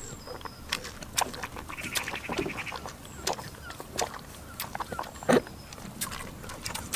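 Goat drinking from a bucket of water: irregular slurps and sips, the loudest about five seconds in. A short buzzing trill sounds briefly about two seconds in.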